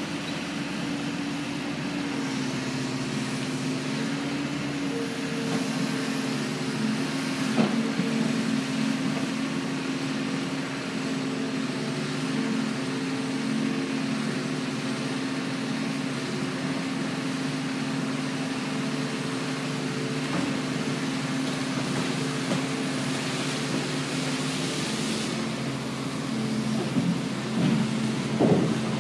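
Dredger's engine running with a steady drone, with a single knock about a third of the way in and several clanks near the end.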